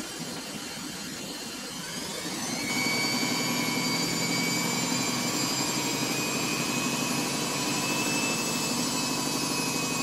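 Samsung front-loading washing machine drum spinning up: the motor's whine rises over the first few seconds, then holds steady at high spin speed.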